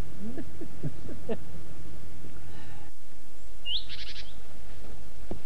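A bird calling, about four seconds in: one quick rising note followed by a short, rapid trill.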